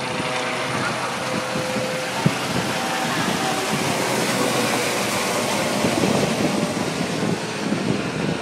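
Air ambulance helicopter flying overhead after take-off: a steady engine noise with a rapid rotor beat, a little louder about six seconds in and easing slightly near the end.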